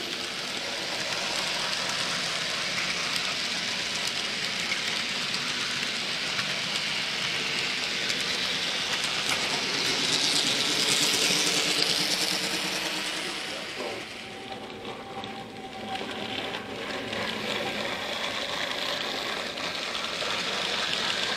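Model train running along the layout's track, heard from a camera riding on it: a steady whirr of the small motor with wheels rattling on the rails. It swells louder about halfway, then drops back for a few seconds before settling.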